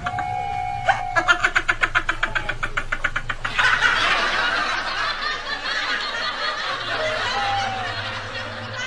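High-pitched cackling laugh in quick, even pulses, then a dense rushing noise from about three and a half seconds in.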